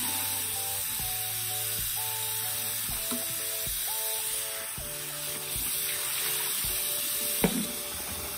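Tap water running and splashing into a collapsible plastic water jug, with a single knock about seven and a half seconds in. Background music with a simple stepping melody plays throughout.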